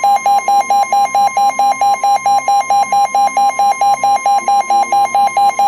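Weather radio emergency alert tone: a rapid beeping alarm, about four beeps a second, over a steady high attention tone. It signals that a new severe thunderstorm warning is about to be read.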